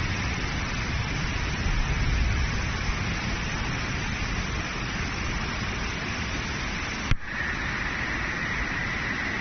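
Floodwater rushing in a swollen river, a steady, continuous noise, with a brief click about seven seconds in.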